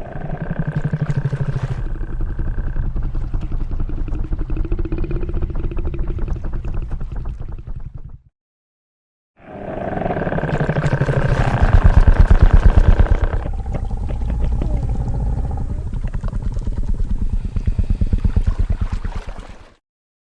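Tyrannosaurus rex creature sound effect: two long, low, rumbling growls with a fast pulsing rattle. The first lasts about eight seconds; after about a second's silence the second lasts about ten seconds and is loudest in its early middle.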